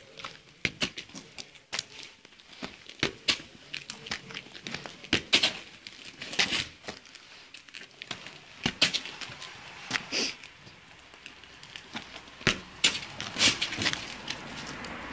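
A cane corso playing with a worn leather football on concrete: irregular clicks, knocks and scuffs of the ball and the dog's claws on the ground, a few louder knocks in the middle and near the end.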